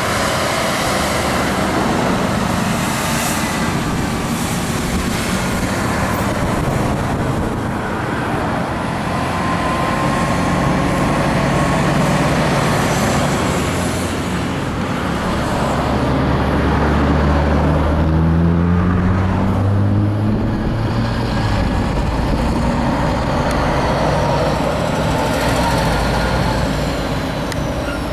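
Heavy road traffic with diesel trucks driving past. Their engines run steadily, and about two-thirds of the way through one engine's pitch rises as it accelerates.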